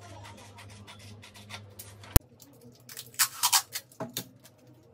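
Printed paper sewing-pattern sheets rustling and being cut with scissors: short scratchy strokes, busiest and loudest near the end, with one sharp click about two seconds in.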